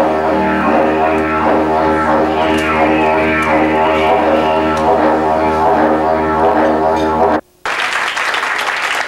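Didgeridoo playing a steady low drone with shifting, sweeping overtones. About seven and a half seconds in it cuts off suddenly, and after a brief silence a rough, noisy hiss takes over.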